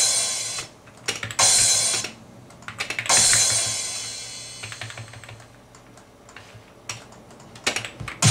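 A recorded cymbal crash sample played back three times, the first two brief and the third left to ring out and fade over several seconds, with computer keyboard clicks between the hits.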